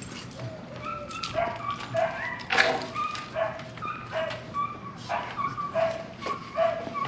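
Dogs barking excitedly: a steady run of short, high yipping barks, about two a second, with one louder bark about two and a half seconds in.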